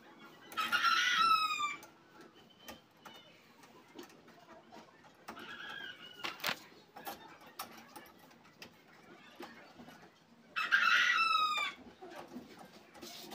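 A rooster crowing loudly twice, about ten seconds apart, with a fainter crow in between. Light metallic clicks come from a doorknob assembly being handled and pushed into a door.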